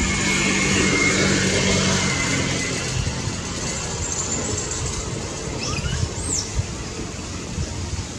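Hum of a passing motor vehicle's engine, loudest in the first two seconds and then fading, over a steady outdoor hiss; a brief high rising chirp a little past six seconds in.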